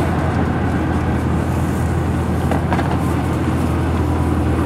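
Jet airliner passing overhead: a steady, loud engine roar, heaviest in the low end.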